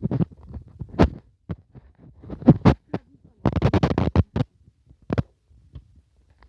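Thuds and scrapes of digging in soil by hand, a few separate strikes and then a quick run of scraping about three and a half seconds in.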